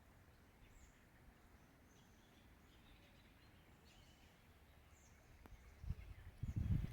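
Faint outdoor ambience with a few scattered, short, high bird chirps over a low background hum. Near the end a louder, irregular low rumbling sets in.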